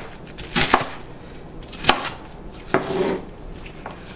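Large kitchen knife dicing cabbage on a wooden cutting board: about four sharp, irregularly spaced chops through the leaves into the board.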